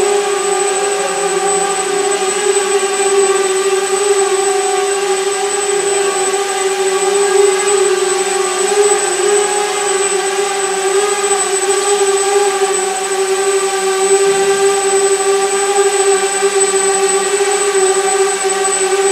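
Small quadcopter drone's electric motors and propellers running steadily in flight: a loud buzzing hum at one slightly wavering pitch with a stack of overtones, and a thin high whine above it.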